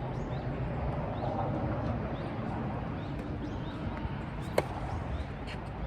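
Steady low outdoor rumble with faint high chirps repeating about twice a second, and one sharp knock about four and a half seconds in.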